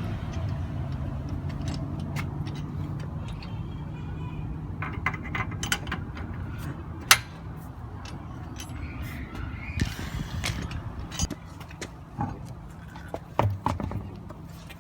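Metal hand tools clicking and knocking on a car's front brake caliper as it is unbolted to get at the pads. A steady low hum runs underneath, and there is one sharp clank about halfway through.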